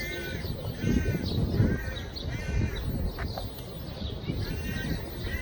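A bird giving a series of short, harsh calls, about six of them with a pause in the middle, over a low background rumble.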